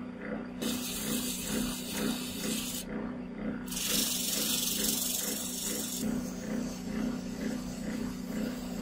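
Lathe running with a steady hum and an even, repeating pulse while abrasive paper is pressed to a spinning brass-rimmed disc, giving a loud hiss in two stretches, the second ending about six seconds in; after that a cloth held to the spinning disc gives a softer hiss.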